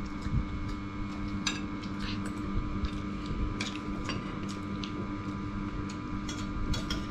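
Metal spoons clicking and scraping against ceramic rice bowls during eating, in scattered short ticks over a steady background hum.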